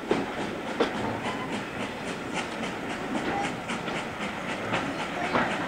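Heritage railway train running slowly along a platform as it pulls out of a station, heard from a carriage window: the wheels and carriage rattle in a steady run of irregular clicks over a continuous rushing noise.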